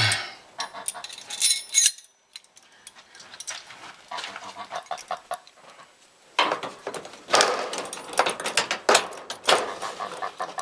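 Metal sliding barn-door trolleys clinking and rattling as they are handled, then scraping and rattling as a trolley is fed into the steel overhead track rail from about six seconds in.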